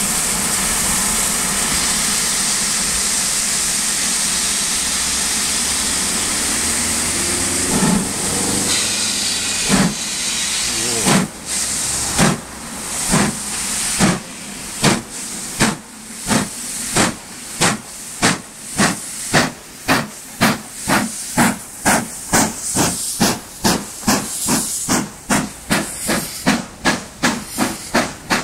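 LMS 'Black Five' 4-6-0 steam locomotive 45337 starting a train: a loud steady hiss of steam, then about eight seconds in the exhaust chuffs begin, slow and widely spaced, and quicken to about two or three a second as it gathers speed. Steam hisses from the cylinders throughout, typical of open cylinder drain cocks on a start.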